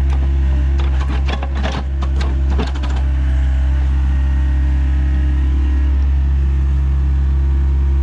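Heavy equipment's diesel engine running steadily at a constant speed. A few sharp knocks and clanks come in the first three seconds.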